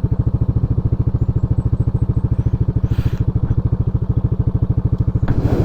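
Motorcycle engine running steadily at low revs, an even rapid pulse. Two short rushes of noise cut across it, the louder one near the end.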